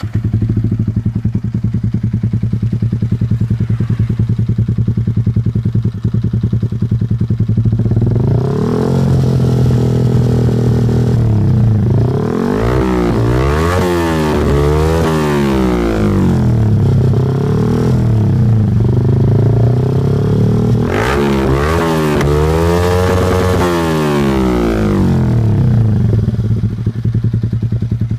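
Yamaha R15 V3's single-cylinder engine breathing through a D'Crow Blaxton GP carbon aftermarket exhaust, idling steadily, then revved in two spells of repeated throttle blips, rising and falling in pitch, and settling back to idle between and after them. The exhaust note is deep and bassy.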